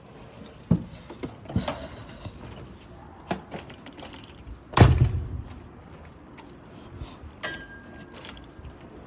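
A series of handling clicks and knocks with one loud thump about five seconds in, and a few short high-pitched tones.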